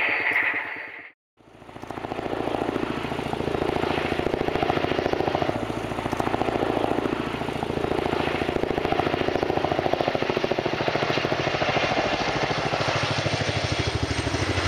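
Helicopter rotors beating in a fast, even rhythm with engine noise underneath, swelling and easing slightly every couple of seconds. A brief cut to silence about a second in.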